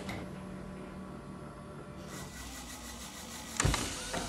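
Old desk intercom switched on: a low steady hum, joined by a hiss of static about two seconds in, with a heavy clunk near the end.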